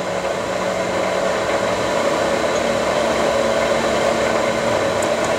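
Engine lathe running steadily, its spindle turning the three-jaw chuck slowly at 65 rpm with the gearbox set for coarse thread cutting.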